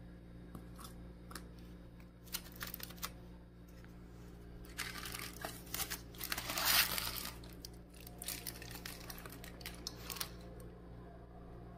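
Aluminium foil crinkling and rustling in irregular bursts as it is peeled back off a takeaway food tray, loudest about seven seconds in. A steady low hum runs underneath.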